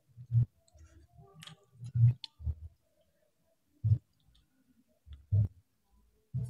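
Eating sounds from someone eating rice with her fingers: mouth clicks and chewing, heard as about six short, separate clicks with soft thumps, a second or so apart.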